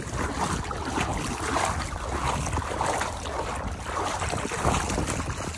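Water sloshing and swishing around the legs of someone wading through a river, in repeated swishes with each stride, with wind buffeting the microphone.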